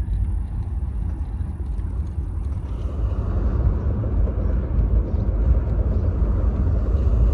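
Steady low rumble of a vehicle rolling slowly along a road, heard from on board.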